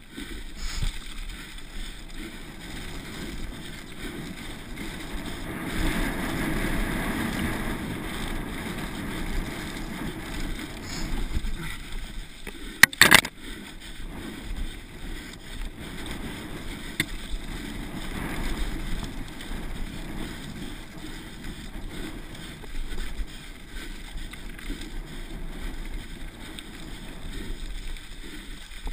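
Downhill mountain bike riding fast over a dry grass trail: steady tyre and frame rattle mixed with wind on the microphone, and one sharp knock about 13 seconds in, the loudest moment.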